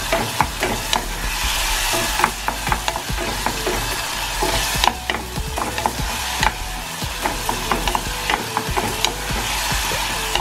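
Grated tomatoes and onion sizzling and frying in a saucepan while a wooden spoon stirs them, with many quick scrapes and taps of the spoon against the pan.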